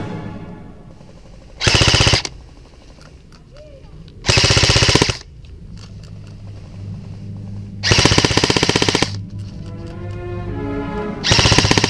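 Airsoft electric guns firing four full-auto bursts, each half a second to a second long and made of rapid, evenly spaced shots. Steady background music plays underneath.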